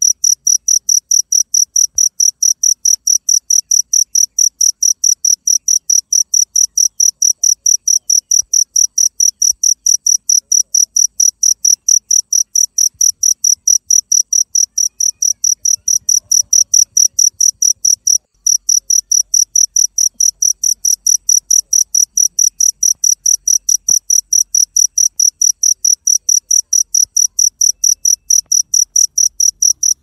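A cricket chirping in a fast, even run of short high-pitched chirps, breaking off briefly once about two-thirds of the way through.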